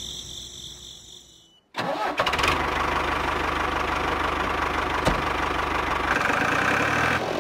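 Diesel tractor engine starting about two seconds in, then idling steadily with an even low throb. Before it, a faint high steady tone fades out.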